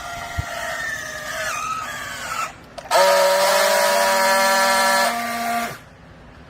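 Hydraulic clothes-baling press running with a machine whine: a wavering whine at first, then after a short break a louder, steady whine that cuts off suddenly near the end.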